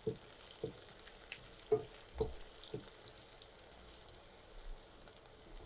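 Sliced onions and garlic frying gently in oil in a karahi with a faint sizzle, while a wooden spatula stirs them, knocking and scraping against the pan several times in the first three seconds.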